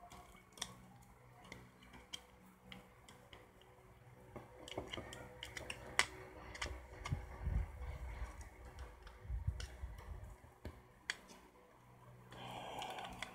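Scattered small clicks and taps of a plastic light gadget being handled and fiddled with, with a few low thumps about seven and nine and a half seconds in.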